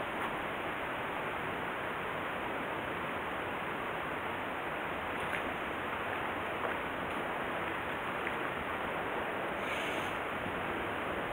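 Steady rush of flowing stream water, with a brief louder hiss about ten seconds in.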